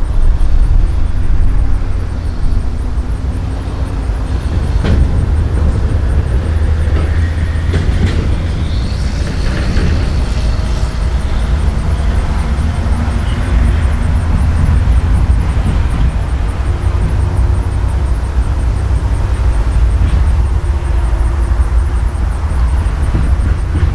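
Several Kansas City Southern diesel-electric locomotives heading a freight train pass close by: a loud, steady low engine rumble mixed with the noise of wheels on rail.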